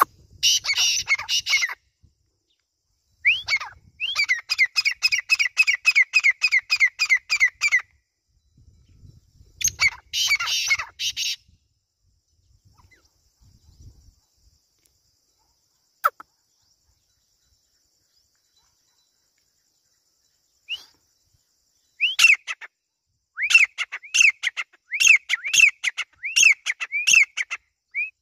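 Grey francolin (teetar) calling in loud bouts of repeated shrill notes, about four a second, each note rising then falling. Harsher rasping bursts come at the start and about ten seconds in.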